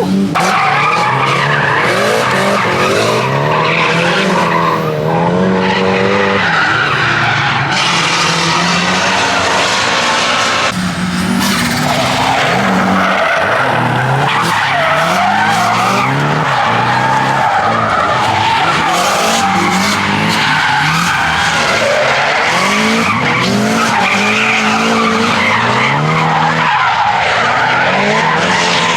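Drift car at full load, its engine revving hard and repeatedly rising and falling in pitch, over continuous tyre skidding and squeal as the car slides through corners.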